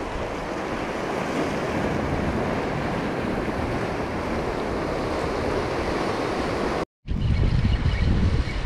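Ocean surf washing against jetty rocks, a steady rushing hiss, with wind rumbling on the microphone. The sound cuts out for a split second about seven seconds in, then the surf and wind come back louder.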